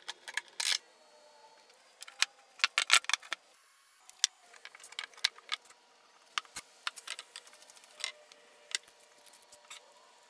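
Metal bar clamps being laid across a wooden glue-up and their jaws slid and tightened: sharp metallic clicks and clinks in quick clusters, loudest about three seconds in, then more scattered.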